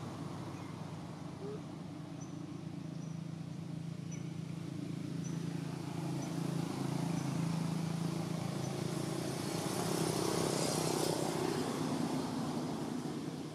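A motor vehicle's engine running steadily, growing louder to a peak about ten seconds in and easing off near the end, as a vehicle passing by.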